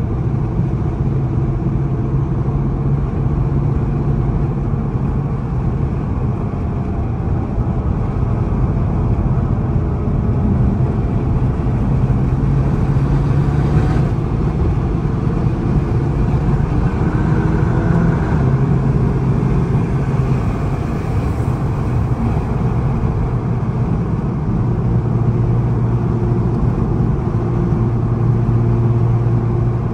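Straight-piped 2008 BMW 535i's N54 twin-turbo 3.0-litre inline-six running at a steady highway cruise, heard from inside the cabin: a continuous low exhaust drone whose pitch shifts only a little, over road noise.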